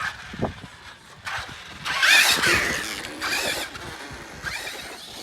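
A small electric motor whining, its pitch rising and falling, loudest for a second or two in the middle.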